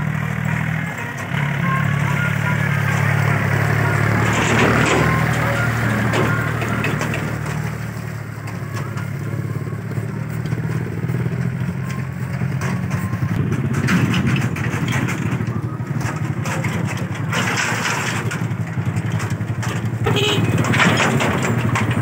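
Small farm tractor's diesel engine running with a steady low drone as it drives, the drone shifting slightly about a second in.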